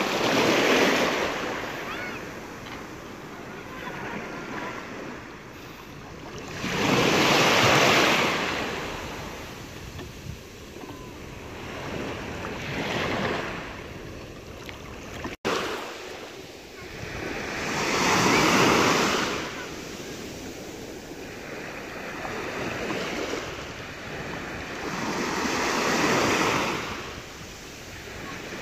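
Small sea waves washing in the shallows in slow swells, one every five or six seconds, with some wind on the microphone.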